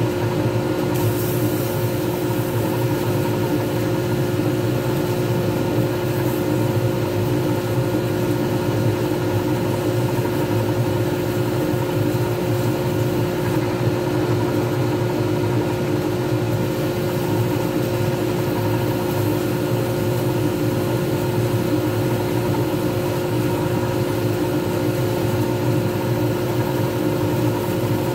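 Lathe running at a steady speed with a resin pen blank turning between centres: a steady motor hum with a couple of constant whining tones that never change pitch.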